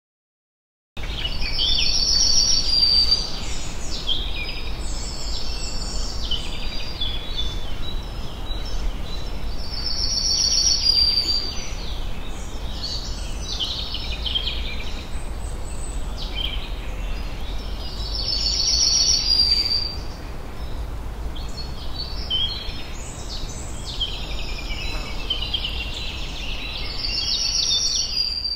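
Woodland birds chirping and calling without a break, a loud high phrase recurring every eight or nine seconds, over a steady low rumble. The sound starts about a second in.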